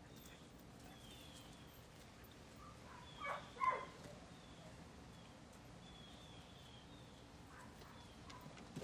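Quiet yard ambience with faint, repeated short chirps of birds, and two brief louder sounds about three and a half seconds in.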